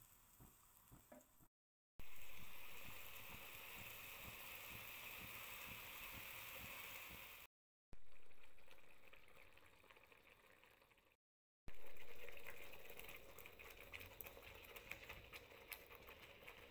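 Blended chilli paste frying in hot oil in a wok: a sizzle that starts loud and dies away, three times over, with crackling spatters in the last part.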